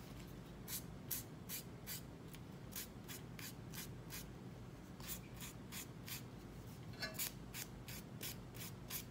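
A small file rubbed in short, quick strokes along the edge of the grip tape on a fingerboard deck, sanding it down: a run of scratchy rasps about three a second, with a short pause midway.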